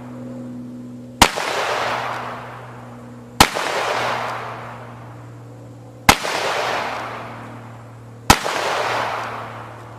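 Four gunshots about two to three seconds apart. Each sharp crack is followed by a long rushing wash of noise that fades over about two seconds.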